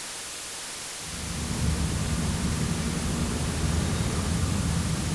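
Steady hiss, joined about a second in by a low, continuous rumble: a recorded traffic or transport ambience.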